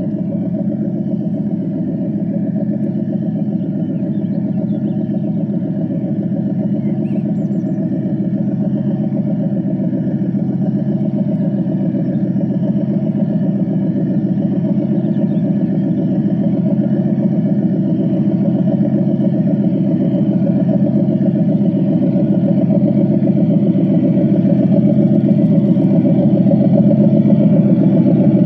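Model British Rail Class 37 diesel locomotive on a garden railway, running with a steady, even engine sound that grows slowly louder as it comes closer.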